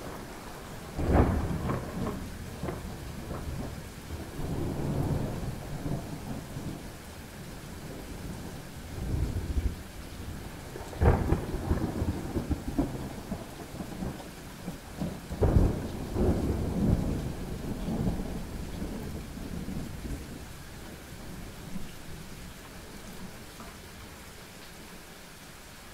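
Thunderstorm: thunder cracks suddenly about a second in, again near the middle and a few seconds later, each rolling on into rumbles, over steady rain. The thunder dies away near the end, leaving the rain.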